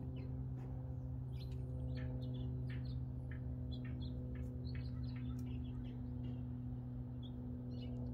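Small birds chirping now and then over a steady low mechanical hum.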